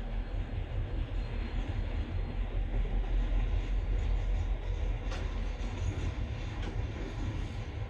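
Pacific National freight train rolling past with a steady heavy rumble, and a couple of sharp clicks from wheels over the rail joints about five and six and a half seconds in.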